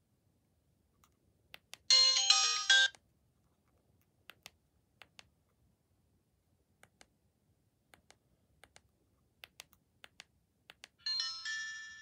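Alcatel 1066 feature phone's speaker playing a short ringtone preview: a bright, loud burst of melody about two seconds in that cuts off after about a second. Faint clicks from the phone's keypad follow as the menus are stepped through, and near the end another ringtone starts and fades away.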